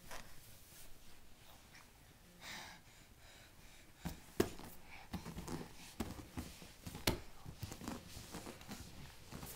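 Soft taps and bumps of a crawling baby's hands and knees on carpet and a vinyl-covered foam play mat, coming thick and irregular from about four seconds in.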